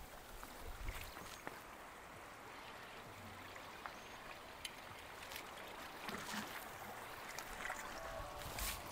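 Faint steady wash of seawater along jetty rocks, with a few light clicks and a sharper noise near the end.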